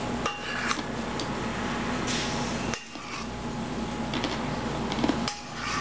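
Metal spoon scraping and clinking against a stainless steel mixing bowl while scooping out chocolate pudding: a series of short scrapes and taps over a steady low hum.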